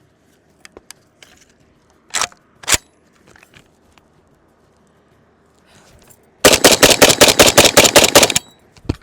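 Zastava ZPAP92 AK pistol fired in a fast string of about a dozen shots over two seconds, rapid semi-automatic fire. Before it come two clacks a couple of seconds in.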